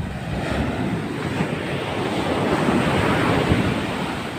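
Heavy storm surf breaking and washing up a sand beach, swelling to its loudest about three seconds in and then easing, with wind buffeting the microphone.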